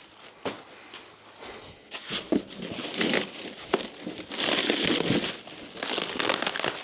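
Packaging crinkling and rustling irregularly as it is handled and pulled around the roof crossbars, with sharp crackles and clicks, getting louder about two seconds in.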